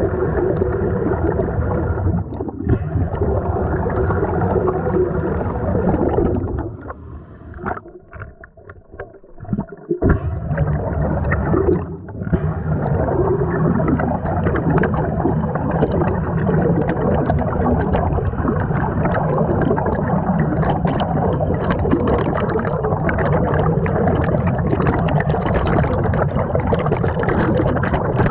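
Small pneumatic grinder running underwater off a scuba regulator, its exhaust air bubbling and gurgling loudly as the bit cuts into rock. It stops about six seconds in and starts up again a few seconds later.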